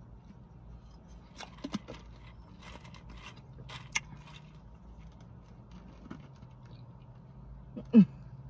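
Mouthful of crushed ice being chewed, in a few short spells of crackly crunching, over a steady low hum. A short hummed vocal sound near the end.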